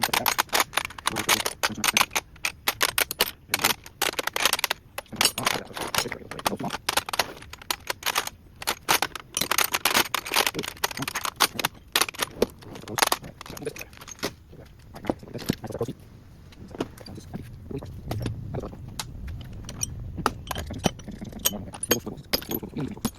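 Metal hand tools clinking and rattling against each other as they are handled and sorted in a toolbox drawer: rapid, dense clinks for the first half, then fewer and sparser ones.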